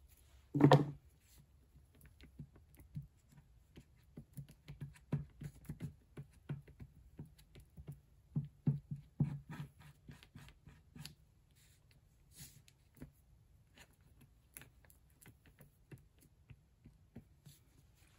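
A single knock on the tabletop about a second in, then a run of small, irregular taps and scratches from a small handheld tool worked against newspaper on the table. The taps thin out after about eleven seconds.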